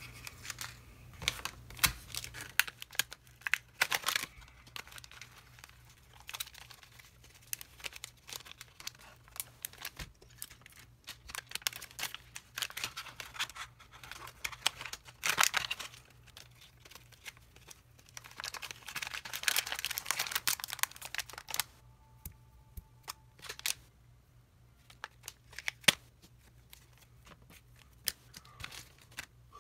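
Clear plastic zip-lock parts bags crinkling and rustling as they are handled, in irregular bursts with pauses, mixed with small clicks and taps of parts being set down.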